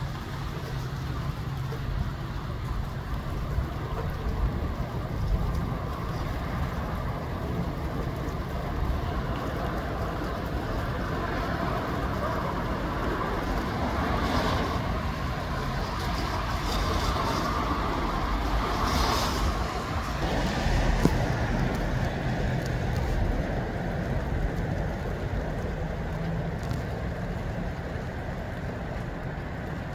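Gusty wind rushing through trees, a steady rush over a low rumble, swelling into a stronger gust about halfway through and easing off again.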